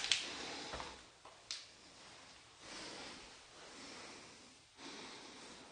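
A person breathing heavily and close to the microphone, in several long airy breaths, with two short sharp clicks, one right at the start and one about a second and a half in.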